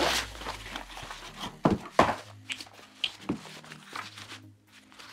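A series of sharp knocks and thunks: one at the start, two close together about two seconds in, and another a little after three seconds, with lighter clicks between.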